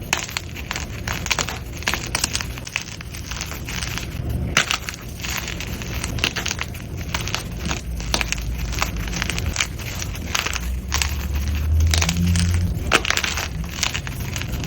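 Blocks of gym chalk being crushed, with dense, irregular crunching and crackling throughout and a heavier low pressing sound a little past the middle.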